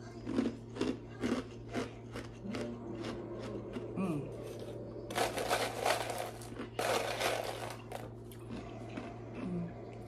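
Metal spoon clicking and scraping inside a paper ice cream cup while the ice cream is scooped and eaten, with two longer rasping scrapes about five and seven seconds in.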